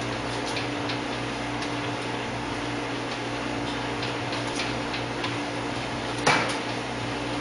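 Restaurant kitchen background: a steady electrical or fan hum with scattered light ticks and clinks, and one sharp knock about six seconds in.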